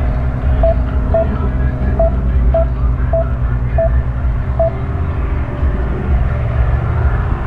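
Single-engine propeller aircraft on approach, its engine a steady low drone. A short, high beep sounds seven times in the first five seconds, roughly twice a second.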